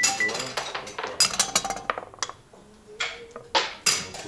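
Backgammon checkers and dice clicking and clacking on the board: a quick run of sharp clicks over the first two seconds, then a few more near the end.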